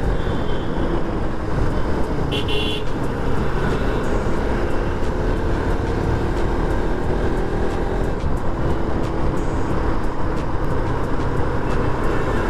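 Motorcycle engine running while riding through city road traffic, with a short horn beep about two and a half seconds in.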